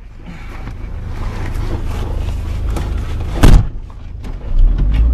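Toyota AE86 Trueno's 4A-GE four-cylinder engine running, with a loud thump about three and a half seconds in; the engine's low note grows louder near the end.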